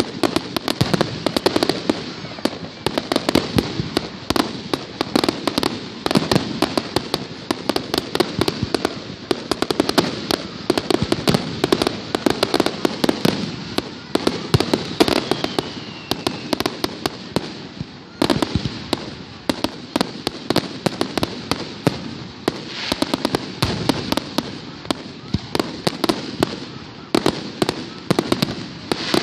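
Aerial fireworks going off in a dense, continuous barrage of bangs and crackles, many a second without a break, with a brief falling whistle about halfway through.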